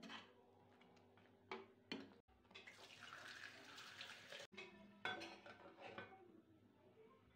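Faint kitchen handling sounds: a few knocks of a spatula against a pan, a stretch of even fizzing from kadhi simmering in the pan, then clinks and scrapes of a steel pan being handled.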